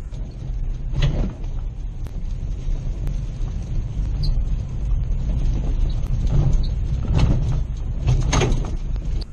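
4x4 truck towing a kayak trailer slowly along a bumpy dirt track: a steady low rumble of engine and tyres, with a few louder jolts about a second in and twice near the end.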